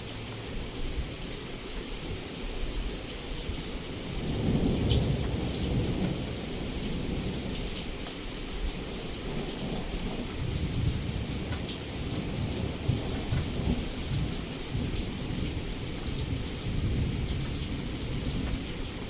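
Heavy rain pouring against a window, with scattered drops ticking on the glass. Thunder rumbles low underneath, swelling about four seconds in and rolling again through the second half.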